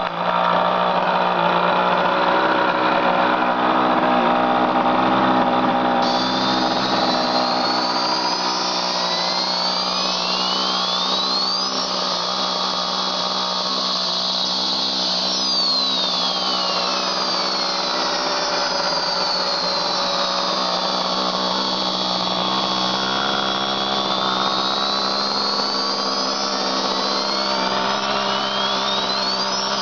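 Electronic jet-engine sound module for an RC model plane playing a steady synthetic turbine whine, with high tones sweeping up and down over it.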